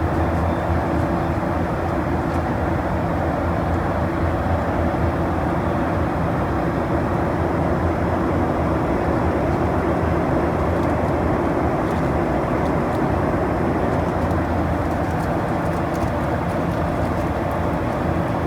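Aircraft cabin noise in flight: a steady drone of engines and airflow with a low, even hum underneath.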